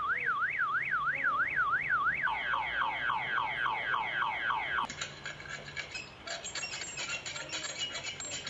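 Car alarm siren cycling through its tones: first a warble sweeping up and down about three times a second, then a fast falling yelp repeated about five times a second. About five seconds in it gives way to a busier sound of many tones.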